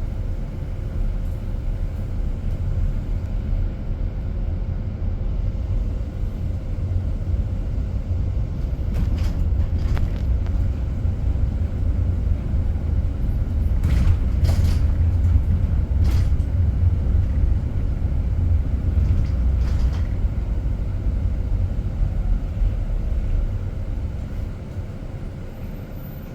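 Ride noise inside a driverless bus: a steady low road rumble that grows louder midway and eases off near the end, with a few faint ticks and knocks.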